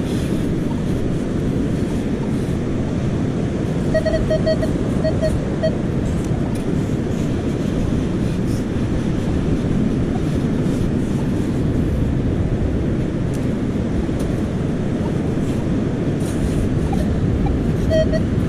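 Strong wind buffeting the microphone on a surf beach. About four seconds in, a metal detector gives a quick run of short, identical beeps on a buried target, and it beeps again near the end.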